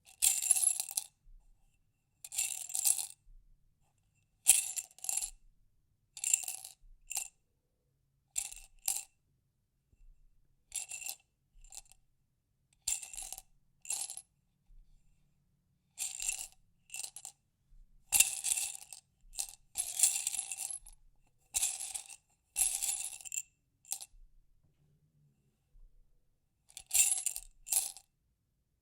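Small hard objects rattling and clinking inside a glass jar, the jar ringing, in about a dozen short bursts with a second or two of silence between them.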